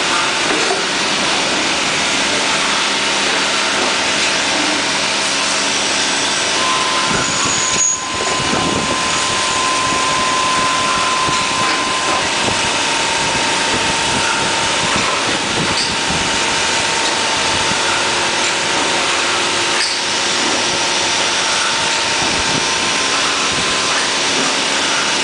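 Machine tools in a bearing factory running steadily: an even noise with several steady whines. A higher whine joins about six and a half seconds in and drops away about five seconds later.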